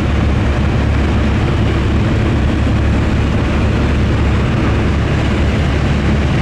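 Steady, loud drone of a skydiving jump plane's engine and propeller, heard from inside the cabin, with a low even hum beneath a wide rushing noise.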